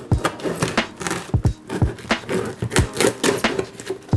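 Kitchen knife cutting through clear packing tape and cardboard on a shipping box: an irregular run of sharp clicks, knocks and scrapes, several a second, as the blade catches and the box is handled.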